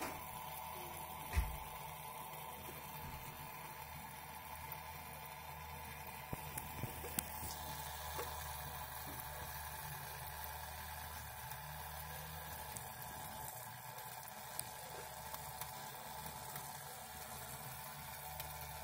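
Small homemade Hall-sensor brushless motor spinning a plastic propeller, a steady faint whir with hiss. A single knock about a second and a half in, and a few light clicks a few seconds later.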